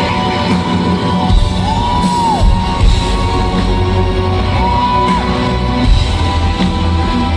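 Rock band playing live in a large arena, heard from the audience: drums, guitar and keyboards, with a high note that swells and falls away twice.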